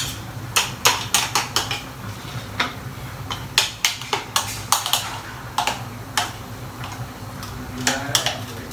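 Spoon tapping and scraping against a small blender cup as coarse chili sambal is scooped out: irregular sharp clicks, sometimes several in quick succession, over a low steady hum.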